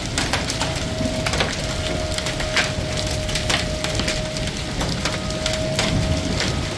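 Hail falling on a car's metal hood and the wet pavement: a dense, irregular patter of sharp ticks and clicks over a steady hiss of falling rain and hail. A faint steady hum runs underneath.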